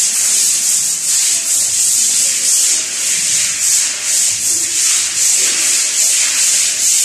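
Several brooms scrubbing a wet concrete floor: overlapping scratchy swishes in strokes about twice a second.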